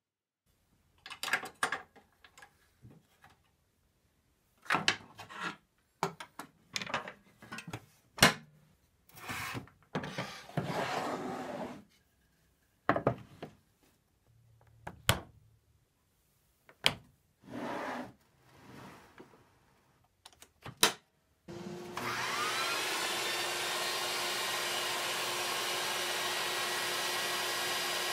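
A run of separate knocks, rubs and scrapes as a wooden crosscut sled and workpiece are handled on a table saw, then, about 21 seconds in, the table saw is switched on: its motor whines up to speed and runs steadily with the blade spinning free.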